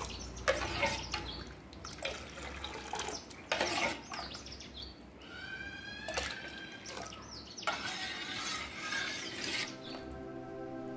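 Watermelon sharbat poured from a stainless steel ladle back into a steel bowl: several pours that splash and run for a second or so each, with a few sharp knocks of the ladle on the bowl. Background music comes in near the end.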